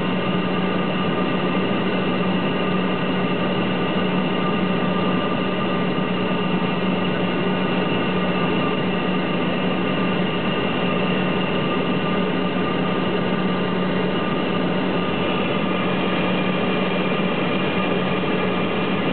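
Cessna Conquest's twin turboprop engines and propellers running at low power during the landing rollout, heard from inside the cockpit: a steady drone with several higher whining tones above it.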